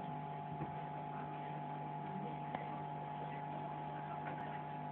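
Aquarium pump running: a steady low hum with a steadier higher whine above it, over a faint hiss of rising air bubbles.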